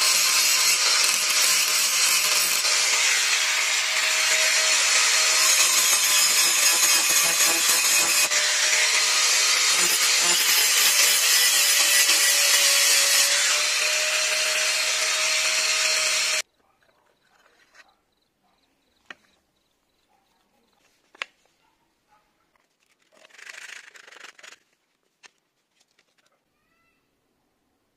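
Bosch angle grinder with a grinding disc grinding a steel knife blade, a loud steady whine that stops abruptly about sixteen seconds in. After that there are only a few faint clicks and a short rustle.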